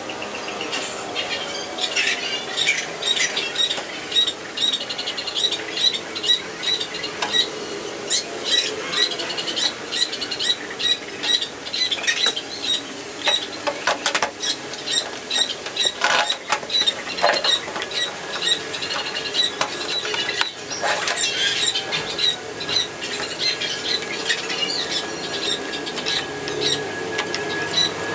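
Hand-tool work on a washing machine's casing: short repeated squeaks, about two a second, mixed with clicks, and a few sharper knocks.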